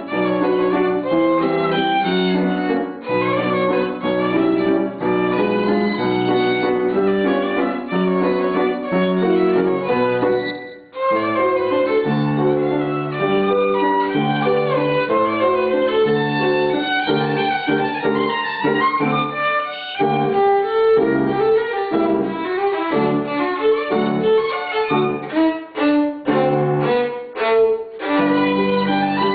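Violin played with the bow in a melodic solo passage. The playing breaks off briefly about a third of the way in, and near the end it turns to short, separated notes.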